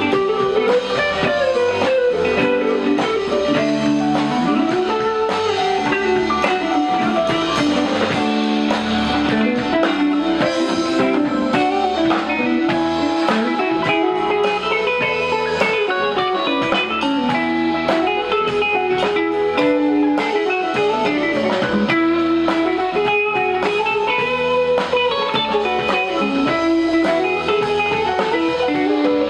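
Live rock band playing an instrumental jam: electric guitars over bass and drums, with no singing.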